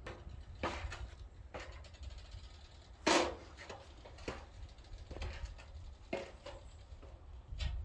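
Irregular knocks and clunks of work on wooden barn framing, about one a second, the loudest about three seconds in, over a steady low rumble.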